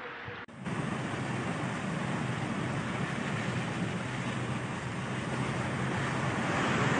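Steady rushing noise in a flooded street, coming in suddenly about half a second in and swelling a little near the end.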